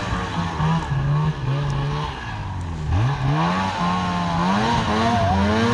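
Snowmobile engine revving while its track spins in deep, wet snow to dig the stuck sled out. The revs sag about two seconds in, then climb again and hold higher as the sled gets moving.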